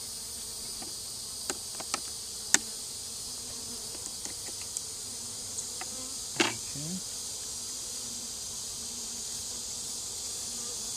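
A honey bee colony buzzing steadily in an open hive as its frames are handled, with a few sharp clicks and knocks. The loudest knocks come about two and a half and six and a half seconds in.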